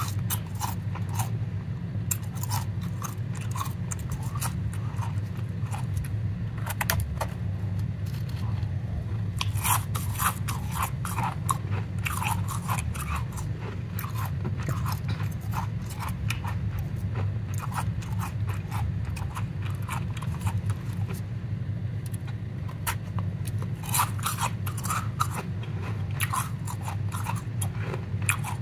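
Powdery ice crunching and crackling as gloved hands squeeze and pack it, in quick irregular crackles that thicken at times, over a low steady hum.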